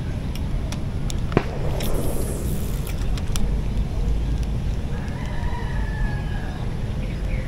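A rooster crowing, one drawn-out call about five seconds in, over a steady low rumble. A single sharp click comes about a second and a half in.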